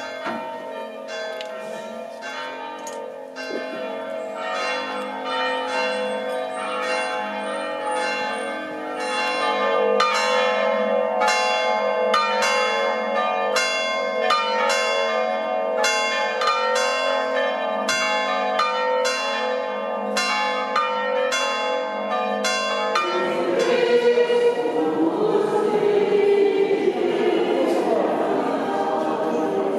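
Church bells ringing in a peal: quick, uneven strikes over a steady ring of overlapping bell tones. The ringing stops about 23 seconds in, and a jumbled, noisier sound takes over.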